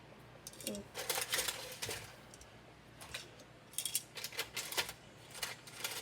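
Quick runs of light clicks and clatter from a kitchen utensil handling mini pizza bagels as they are lifted out of the air fryer onto a plate, in three bursts: about a second in, about four seconds in, and near the end.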